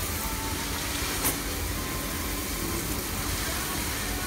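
Handheld shower sprayer running, a steady hiss of water spraying over a wire crate in a stainless steel tub, with a single sharp click about a second in.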